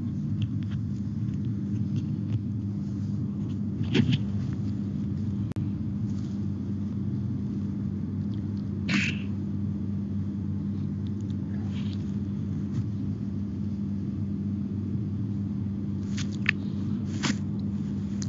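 A steady low hum with a few brief rustles and clicks scattered through it, the sharpest about four and nine seconds in.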